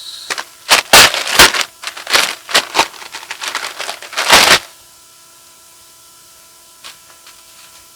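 Plastic packaging crinkling and rustling in short bursts as a tool is unwrapped by hand. It stops about four and a half seconds in.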